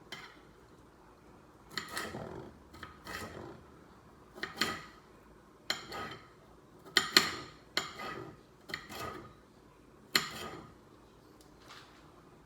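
Kitchen utensils knocking and clinking against dishes and a cutting board, about a dozen irregular sharp strikes with a brief ring after each.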